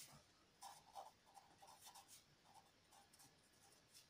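Faint scratching of a pen writing a word on paper, in short strokes.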